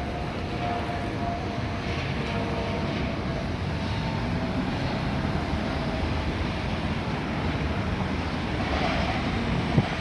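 Steady low rumble of outdoor background noise, with faint steady tones in the first half and a short knock near the end.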